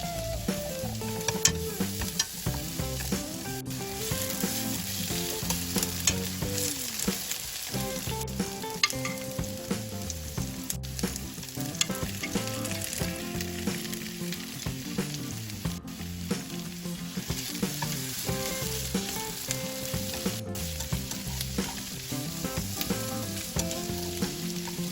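Food sizzling as it fries in a pan, stirred with a spatula that clicks and scrapes against the pan now and then.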